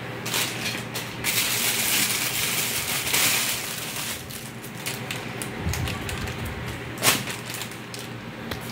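Clear plastic garment bag crinkling and rustling as it is handled and opened, with a loud stretch of crinkling about a second in that lasts a couple of seconds, and a single sharp crackle near the end.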